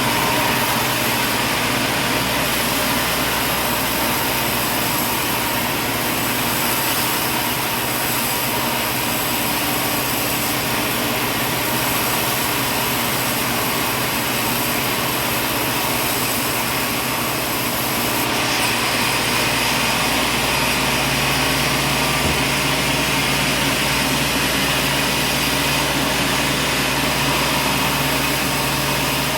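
Sawmill machinery running steadily, a dense mechanical whir and hiss with a constant hum. About two-thirds of the way in the tone changes and a deeper hum joins.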